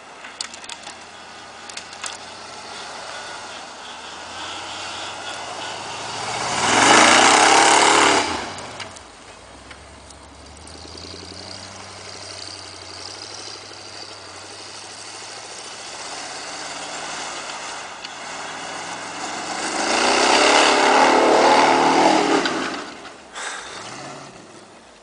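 1977 Ford F-150 4x4 pickup's engine running under load in deep snow, revving up hard twice, about seven seconds in and again about twenty seconds in, each surge lasting two to three seconds, with lower steady engine running between.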